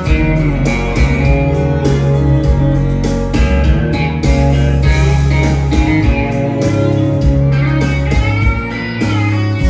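Music: a guitar-led song with a heavy bass line and a steady drum beat, no vocals in this stretch.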